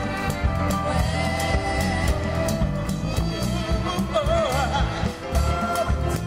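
Gospel worship song: a singing voice with vibrato over a band with a steady drum beat.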